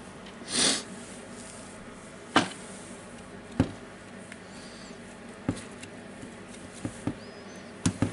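Handling noise from working inside an opened cordless hammer drill's plastic housing: scattered light clicks and taps as wires and plastic parts are pushed into place, with a short rushing noise about half a second in.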